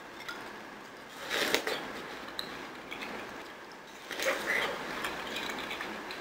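Eating raw watermelon chunks with a fork from a glass bowl: a fork spearing wet fruit, then a juicy bite and chewing. The two loudest moments come about a second and a half in and again about four seconds in.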